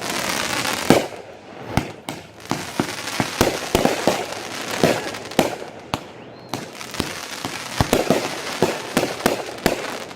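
Fireworks display going off: a rapid, uneven series of sharp bangs, a dozen or more, with crackling between them.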